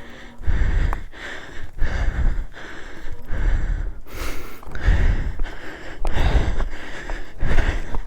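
A man breathing hard and panting close to the microphone while climbing a steep rocky slope, about one loud breath every second.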